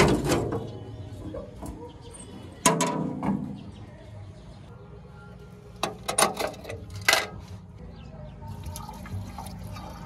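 Sharp metallic clanks and clicks, a few loud ones near the start, at about three seconds and a cluster around six to seven seconds: a backhoe loader's radiator filler cap being handled and twisted off its metal tank.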